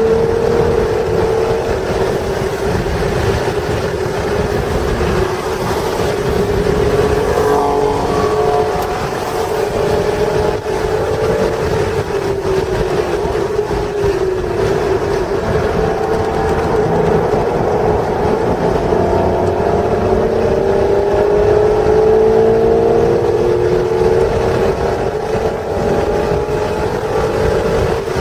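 1996 Acura NSX's 3.0-litre V6 being driven hard, its pitch climbing slowly under acceleration and dropping back several times for shifts and braking, with wind and tyre noise underneath.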